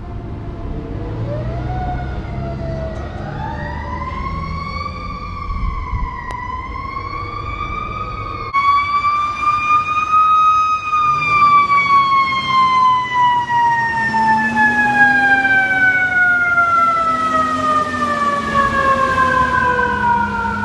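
Emergency vehicle siren wailing, its pitch rising and swaying at first. About eight seconds in, an ambulance siren takes over, louder, in one slow wail that falls steadily in pitch over about ten seconds.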